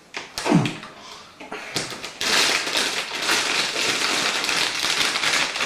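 Graphics card packaging being handled: a few taps and a short scrape in the first second, then steady rustling from about two seconds in.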